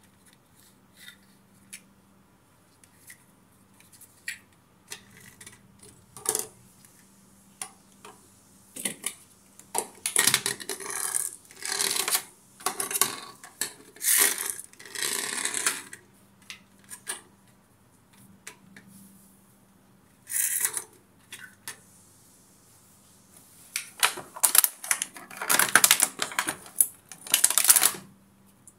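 Thin clear plastic packaging crinkling and small hard plastic toy models clicking and clattering as they are handled and taken out of a blister tray, in irregular bursts. Longer stretches of rustling come in the middle and near the end.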